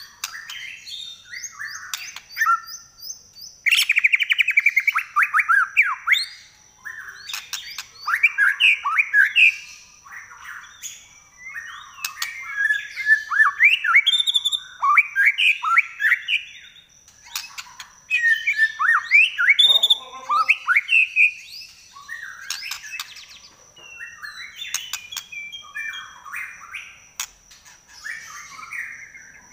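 White-rumped shama singing a long, varied song of whistled phrases and fast stuttering trills, delivered in bursts with short pauses between them.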